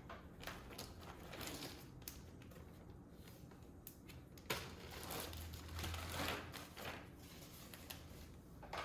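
Faint handling sounds: scattered light clicks and rustling from small plastic keyboard switches and their packaging being handled, a little louder about five seconds in.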